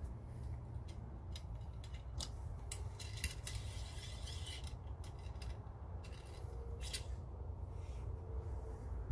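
Light clicks and knocks of metal parts being handled on a stainless Marlin 795 .22 rifle during cleaning, with a rubbing scrape about three to four and a half seconds in.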